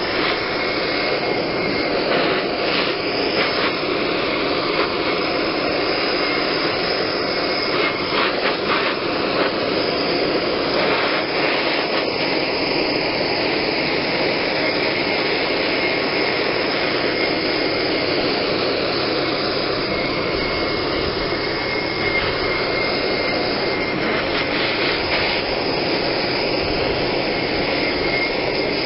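Hand-held propane torch burning with a steady rushing hiss, its flame played over a polyethylene barrel to heat the plastic and melt out surface scratches.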